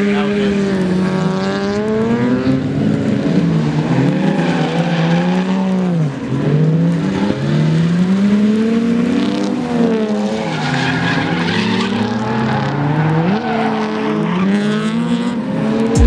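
Drift cars' engines revving up and down over and over as the cars slide, with tyre squeal.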